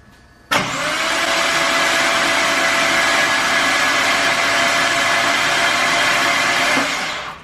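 BMW E36 engine cranked over on its starter with the spark plugs out: a steady whir with a hiss that starts abruptly and cuts off after about six seconds. It sounds odd because there are no spark plugs in, but it turns over freely with no valve interference, a check that the timing is right after the head was refitted.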